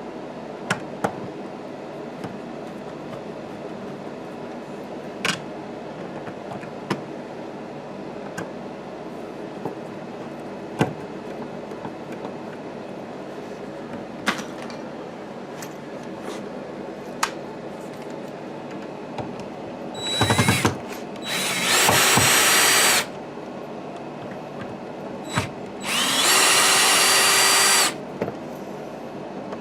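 Cordless drill-driver running in two short bursts, about a second and a half and two seconds long, a little after two-thirds of the way in and again near the end, driving screws during the electrical install. Light clicks and knocks of handling parts and tools come before them.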